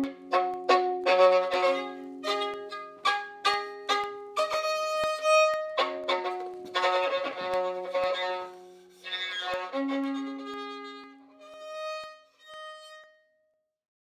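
Improvised jazz music: a string of separate notes and chords, thinning out toward the end to two last notes before it stops.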